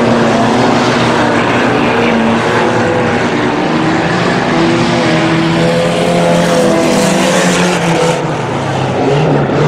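Race truck engines running hard on a dirt oval as the trucks lap, their engine notes rising and falling with throttle.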